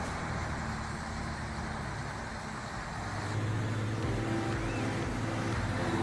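Heavy vehicle's engine running steadily, getting louder about three seconds in.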